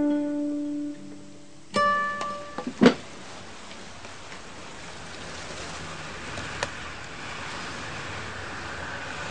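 Background score of plucked guitar notes that stop about two seconds in, followed by a single sharp click, then a soft steady hiss.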